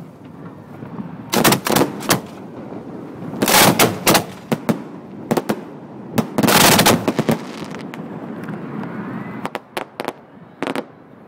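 Aerial firework shells launching and bursting at close range: clusters of loud bangs about a second and a half, four and seven seconds in, with quicker, lighter cracks between them and a few sharp cracks near the end.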